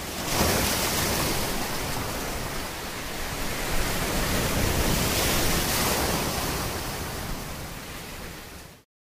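Sea surf: a loud, continuous rush of waves that swells and ebbs a few times, then fades and cuts off near the end.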